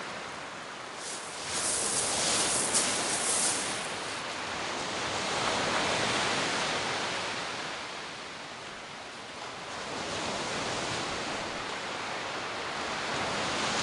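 Sea surf on a shingle beach: a steady rushing hiss of waves that swells and eases over several seconds.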